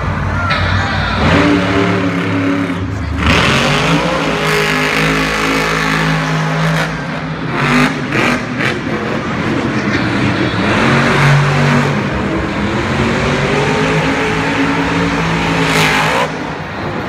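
Grave Digger monster truck's supercharged V8 revving hard, its pitch repeatedly climbing and dropping as the truck drives and jumps over the dirt mounds. A few sharp cracks come about eight seconds in.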